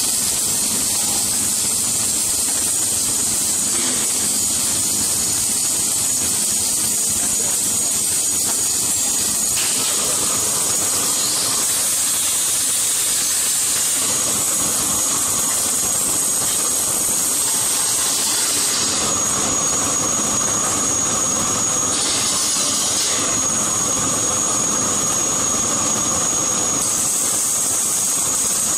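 Steady hiss and crackle of an automatic orbital welding machine running a weld around a pipeline joint, with a thin high whine coming in about two-thirds of the way through.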